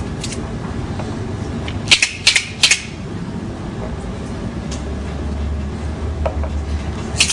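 Montessori cardboard sound cylinders shaken by hand, their filling rattling in three quick bursts about two seconds in and again in a quick cluster near the end, as the cylinders are compared for loudness.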